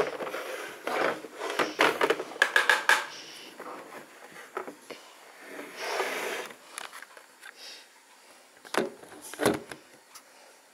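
Plastic toy laptop handled on a wooden table: its lid is clicked open and the case scrapes and knocks against the wood, a dense run of clicks and scrapes in the first three seconds and two sharp knocks near the end.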